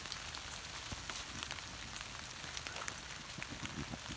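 Dry leaf litter crackling with a steady fine patter of many small ticks, with a few soft low thumps near the end.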